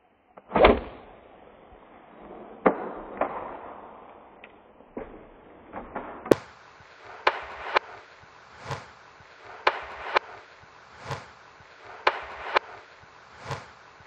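Traditional bow shot: one loud, sharp thump of the string released from full draw about half a second in, followed by a few scattered knocks and rustles. From about six seconds in, a regular beat of sharp hits, alternating paired and single strokes.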